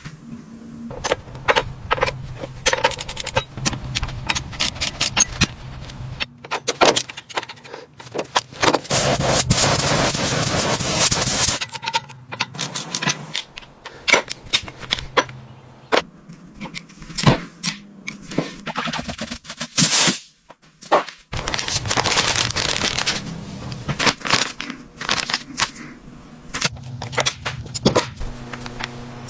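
Workshop work on a car: a busy run of sharp clicks, knocks and metal clatter, with two longer stretches of hissing noise, one about a third of the way in and one a few seconds past two-thirds.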